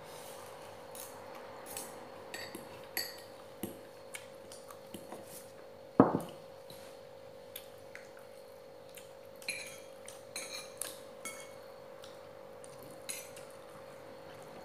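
Close-up eating sounds: scattered small clicks and crunches as breaded fried shrimp is bitten and chewed, with light clinks of plates, over a steady hum. One much louder knock about six seconds in.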